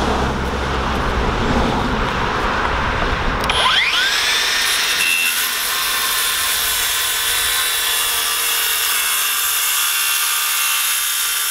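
Skil cordless track saw spinning up with a quick rising whine about three and a half seconds in, then running at a steady pitch as it cuts through a rough-sawn solid oak board about 1.28 inches thick. The saw does not stall, cutting through the thick oak with no problem.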